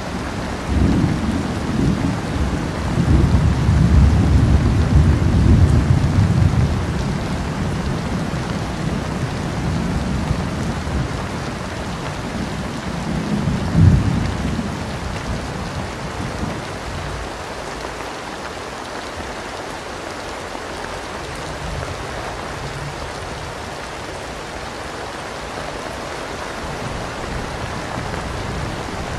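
Thunderstorm: steady rain with rolling thunder. A long low rumble of thunder starts about a second in and fades by about seven seconds. A sharper clap with a rumble comes about halfway through, and a faint rumble follows later.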